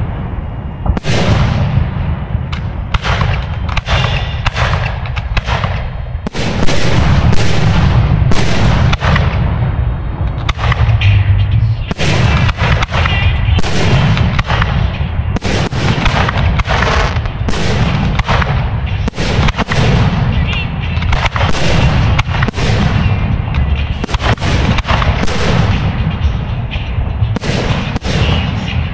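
Professional aerial fireworks display shells bursting in rapid, overlapping succession: a dense barrage of sharp bangs over a continuous low rumble, loudest about six and a half and eight seconds in.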